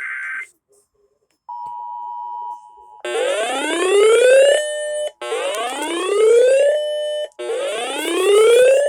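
Emergency Alert System broadcast tones. A burst of screechy digital header data ends about half a second in. After a short gap comes a brief steady two-note attention tone, and then, from about three seconds in, a rising whooping alert tone that sweeps up and holds, repeating roughly every two seconds.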